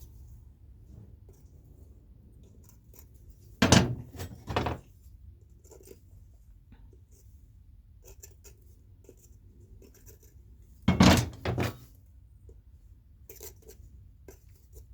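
Steel farrier nippers clanking as they are handled and set down, in two short bursts of clanks about four seconds in and again about eleven seconds in, with faint handling noise between.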